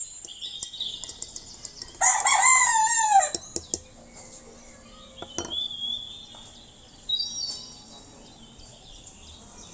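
A rooster crows once, about two seconds in, the call bending down in pitch at its end. Small birds chirp and whistle around it.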